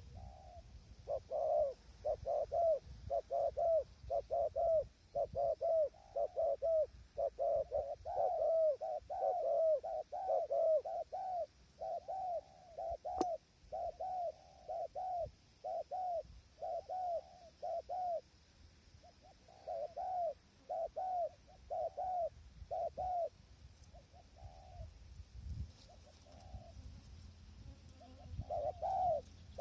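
Spotted doves cooing: a long run of repeated coo notes, about two a second, breaking off briefly partway through, dropping to faint notes for a few seconds, then starting again near the end. A low wind rumble runs underneath.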